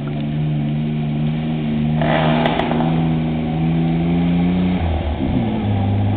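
1985 GMC S15 4x4's engine revving hard under load as the truck climbs a steep mud trail. The pitch holds steady, drops sharply about five seconds in, then climbs again. A second-long hiss comes about two seconds in.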